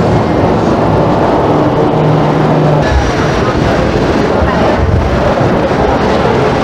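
A Hong Kong double-decker electric tram running along the street, heard from aboard as a loud, steady rumble of wheels on rail and motor.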